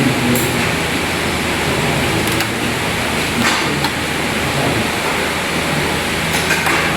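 Steady loud hiss with a few light clicks, about half a second in, twice in the middle, and near the end.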